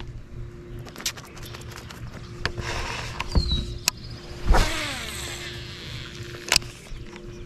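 A baitcasting reel making a cast: about four and a half seconds in, the spool whirs with a falling pitch for about a second. Sharp clicks of the reel and rod handling come before and after, over the steady hum of an electric trolling motor.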